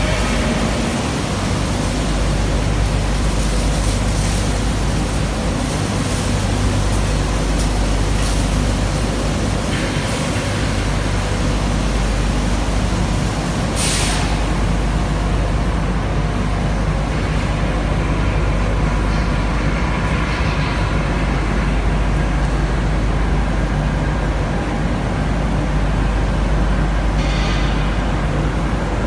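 Steady machinery noise with a strong low hum from an automatic painting line in operation. A short, sharp hiss of air comes about halfway through.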